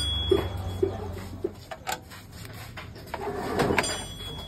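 Metal clicks and knocks from hands and tools working on a motorcycle's rear wheel and swingarm, with a short scraping rub about three and a half seconds in.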